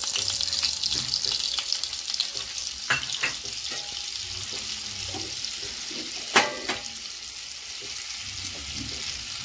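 Butter sizzling as it melts in hot oil in a kadhai, a steady frying hiss that eases off a little toward the end. A few sharp clicks, the loudest about six seconds in.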